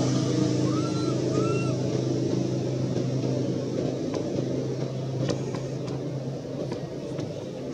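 A motor vehicle's engine running nearby, a steady low hum that slowly fades. About a second in come two short rising-and-falling squeaks, and a few light clicks follow in the second half.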